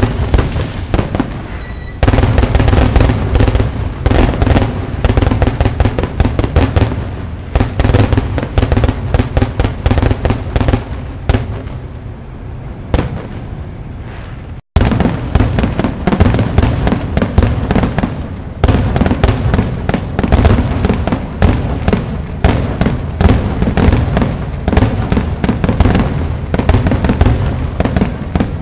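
Aerial firework shells bursting in a rapid, overlapping barrage with crackling, typical of a grand finale. Loud bangs come several a second over a constant rumble, ease slightly just before the middle, cut out for an instant and then go on as densely.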